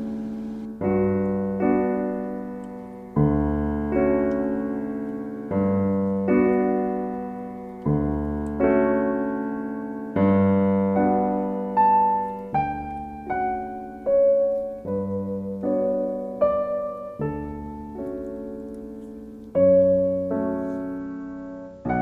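Background music: a slow solo piano piece, chords and melody notes struck every second or two and left to fade.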